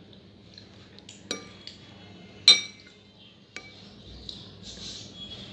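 A spoon clinking against a serving plate while scooping caramel pudding. There are a few sharp clinks, each with a short ring, and the loudest comes about halfway through.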